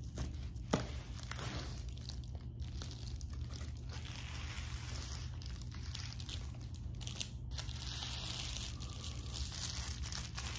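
Foil-faced bubble insulation crinkling and rustling as it is laid onto a board coated with contact cement and pressed flat by hand, with a few sharp crackles near the start, over a steady low hum.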